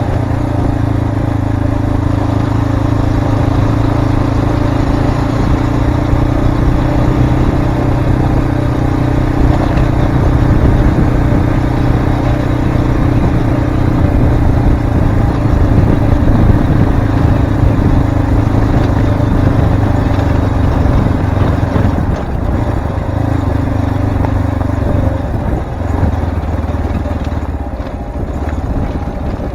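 Cyclone RX3 motorcycle's single-cylinder engine running steadily under way, over a wash of riding noise. In the last third the engine note eases and dips a few times.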